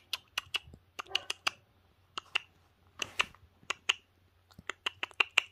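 A 22-day-old puppy licking and mouthing a finger: quick, irregular wet smacking clicks, several a second, some in small clusters.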